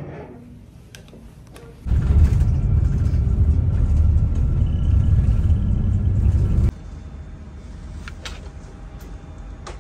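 Low engine and road rumble heard from inside a bus, starting and stopping abruptly. About seven seconds in it gives way to a quieter steady hum with a few faint steady tones inside an airliner cabin.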